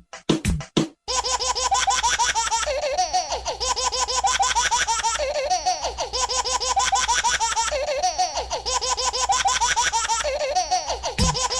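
Sound-effect recording of young children giggling and laughing wildly, many laughs overlapping. The laughter starts about a second in, after a few short choppy bursts, and the same stretch of laughter repeats every few seconds like a loop.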